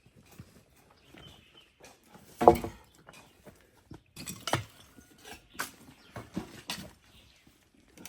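Irregular knocks, thuds and scrapes from concrete being worked into formwork, with the loudest thud about two and a half seconds in.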